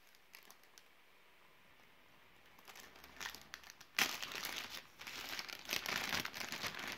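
Thin plastic MRE packaging bag crinkling and rustling as it is handled. It starts about two and a half seconds in and turns louder about four seconds in.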